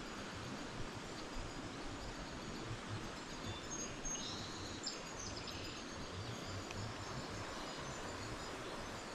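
Steady rush of a shallow stream flowing over a riffle, with a few faint bird chirps about four to five seconds in.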